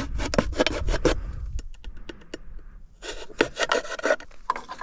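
A knife sawing through a plastic bottle to cut it into a makeshift funnel: quick rasping strokes, a short pause about two and a half seconds in, then more strokes.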